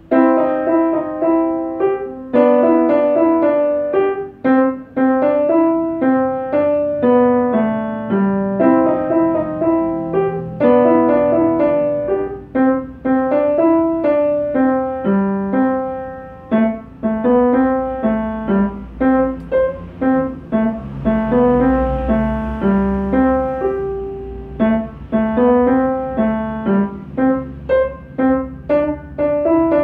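Upright piano playing a short piece: a quick, even stream of separate notes, mostly in the middle register, with a few short breaks between phrases and quicker detached notes near the end.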